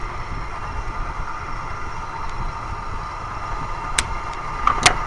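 Two sharp plastic clicks about a second apart near the end as cheap pliers work at a zip tie, over a steady background hum.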